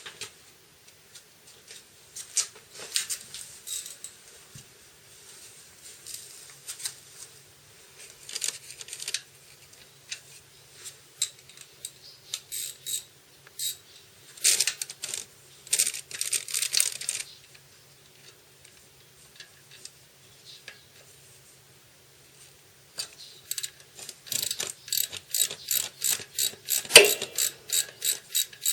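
Hand ratchet wrench clicking in short irregular strokes, then a quick steady run of about four clicks a second near the end, as bolts are worked on the motorcycle.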